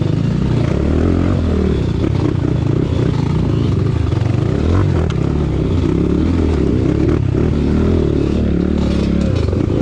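Kayo dirt bike's single-cylinder four-stroke engine running at low revs while climbing a rutted dirt trail, its pitch wavering with the throttle. A few knocks and rattles from the bike come over the rough ground.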